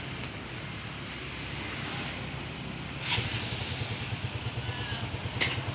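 A motor vehicle engine running, its low rapid throb growing stronger about three seconds in, over a steady hiss, with two short sharp noises about three and five and a half seconds in.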